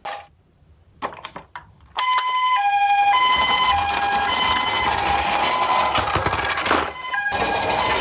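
A toy ambulance's electronic two-tone siren, alternating between a higher and a lower note, starts about two seconds in after a few sharp clicks. It plays over the rolling rumble of the toy's wheels on a wooden ramp, with a short dip near the end.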